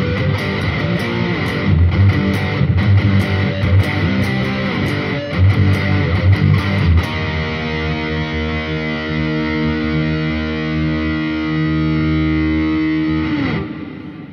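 Distorted electric guitar played through effects. It plays a rhythmic riff with sharp picking clicks, then strikes a final chord about seven seconds in and lets it ring. Near the end the chord ends with a brief downward slide in pitch and fades out.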